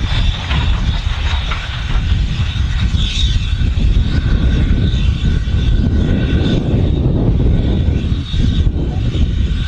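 Steam-hauled trains running past at a distance: a steady, loud, low rumble.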